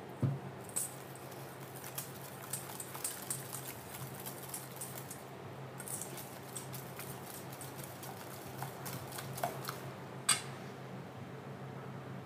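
Wire whisk beating salad dressing in a stainless steel bowl: rapid light clicks of the wires against the metal, pausing briefly about halfway through, with one louder clink near the end.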